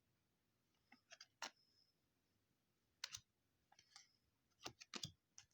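Faint, scattered clicks and light snaps of trading cards being handled and flipped one by one: a few about a second in, one near the middle, and a quick cluster near the end.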